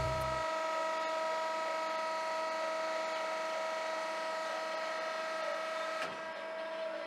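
Adal DB 400 S double-column metal-cutting bandsaw running with a steady mechanical hum made of several fixed tones, with a single click about six seconds in.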